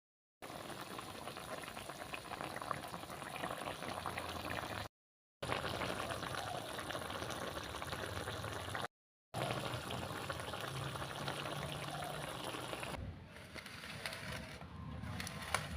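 Food bubbling and crackling in a cooking pan, a dense steady sizzle that drops out twice for a moment and grows quieter near the end.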